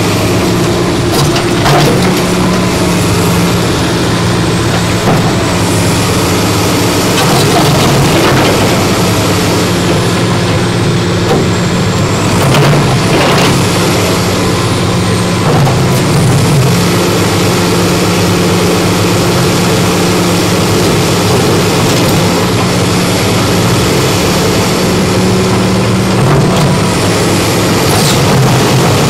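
Komatsu hydraulic excavator's diesel engine running steadily under load as its bucket works a pile of broken wall stones, with its pitch shifting about halfway through. A few sharp knocks of stone on stone are heard.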